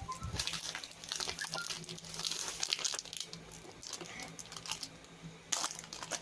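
Plastic Chiki snack bag crinkling and being torn open by hand, with irregular crackles throughout and a sharper rustle near the end.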